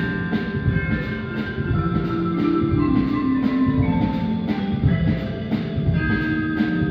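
School concert band playing: held wind chords and a slowly descending melody over a steady percussion beat of about three strokes a second, with bell or mallet-percussion tones ringing through.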